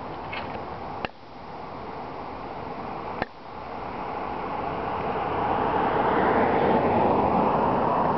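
An approaching car's tyre and road noise: a steady rush that grows louder from about halfway through. Two sharp clicks come near the start, about two seconds apart.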